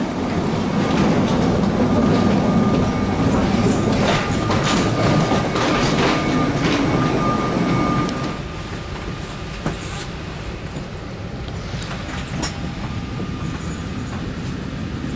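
Wheeled suitcases rolling along a jet bridge floor with footsteps, a rumbling clatter with a faint steady whine behind it. About eight seconds in it drops to a quieter steady hum inside the aircraft cabin.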